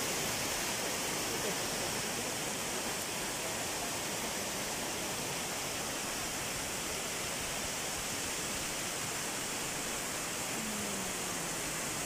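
Waterfall rushing steadily, an even hiss with no breaks.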